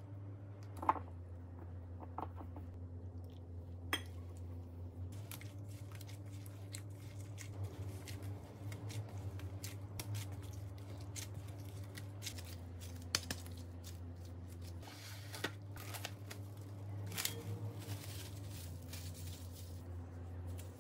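Gloved hands mixing and kneading rice flour in a glass bowl: crinkly rustling of the plastic gloves and a soft crunch and squish of the damp flour, with a few sharp clicks. A steady low hum runs underneath.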